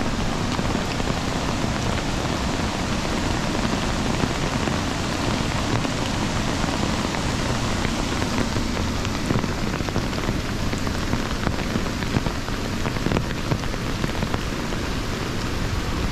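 Heavy rain falling steadily: a dense, even hiss with individual drops ticking through it.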